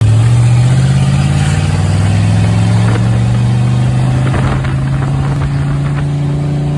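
V8 engine of a 1954 Corvette running under way on a test drive, with a steady, even low exhaust note.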